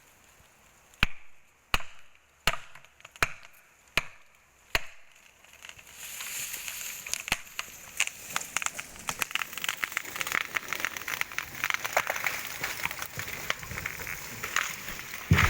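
Six sharp blows on wood, evenly spaced under a second apart. Then, from about six seconds in, a long run of wood cracking and snapping as the felled tree goes over, ending in a heavy thud near the end as it hits the ground.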